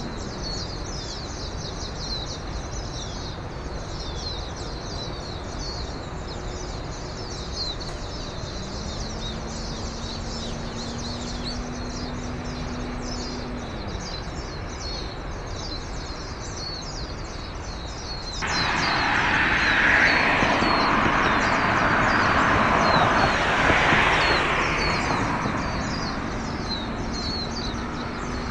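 Many small birds chirping continuously. A low steady hum holds for a few seconds in the first half. About two-thirds of the way through, a loud rushing noise begins abruptly and fades away near the end.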